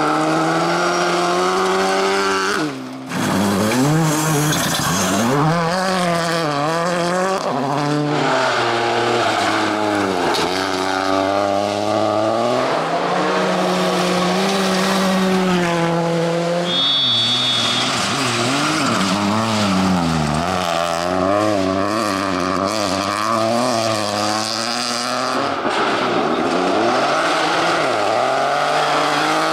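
Turbocharged rally cars driven hard one after another through gravel corners: engines revving, their pitch climbing and dropping again and again through gear changes and lifts, over the hiss of tyres on loose gravel. A brief high whistle sounds just past the middle.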